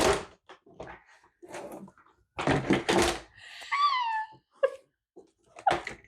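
Collapsible plastic storage bin being wrestled open, its panels knocking and clattering in a string of sharp hits. About four seconds in comes a short squeal that falls in pitch.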